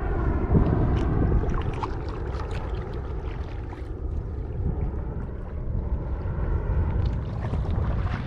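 Wind buffeting the microphone with water splashing and lapping against a kayak's hull, with scattered small splashes and ticks.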